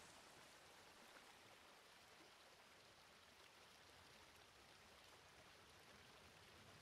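Faint, steady wash of sea water, close to near silence.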